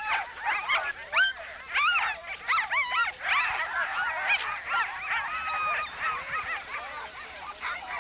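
Many sled dogs yelping and whining at once, their high calls overlapping continuously.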